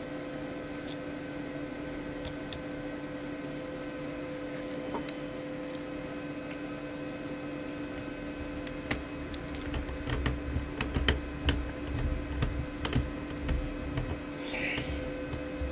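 Small sharp clicks and taps of a screwdriver and screw against the laptop's chassis while a screw is being fitted, with handling knocks. They start about nine seconds in and include a brief scrape near the end, over a steady background hum.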